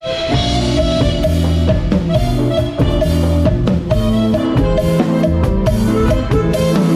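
Live band playing a cha-cha, with the drum kit prominent over a moving bass line and sustained chords, in a steady dance rhythm.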